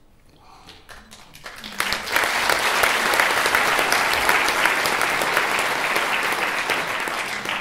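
Audience applause. A few scattered claps start about a second in and swell within another second into steady, full clapping, which begins to die away near the end.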